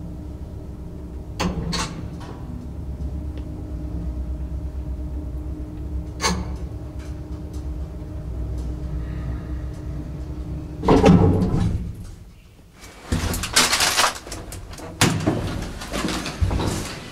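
Lift car running with a steady low hum and a few clicks, then stopping about eleven seconds in with a loud jolt and clatter. Rattling knocks and bangs follow as the doors are opened.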